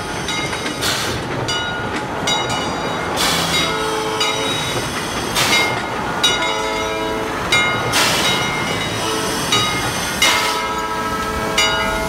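A locomotive sounding three short chord-like horn blasts over steady train running noise, with a short hiss every couple of seconds.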